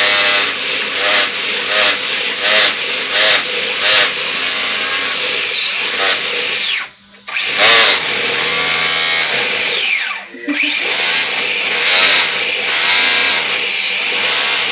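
High-pitched electric whine of an Arrma Limitless RC car's brushless motor and drivetrain on throttle. The pitch wavers up and down repeatedly, falls away in long sweeps, and cuts out briefly twice.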